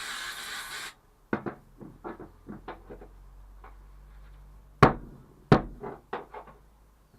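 Aerosol freeze spray hissing, cut off sharply about a second in. Then a run of sharp clicks and knocks, two loud ones about five seconds in, from a small chisel tapping and chipping at frozen, rock-hard footwell sound-deadening.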